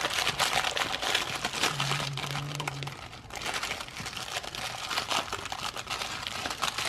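Foil wrapper of a toaster-pastry pouch being torn open and peeled back by hand, crinkling and crackling irregularly throughout.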